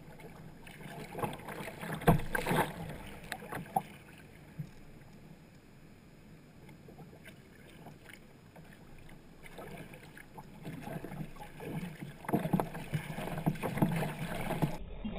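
Sea kayak paddle blades dipping and splashing, with water slapping against the kayak's hull and deck. There is a cluster of splashes about two seconds in and another near the end, with quieter strokes in between.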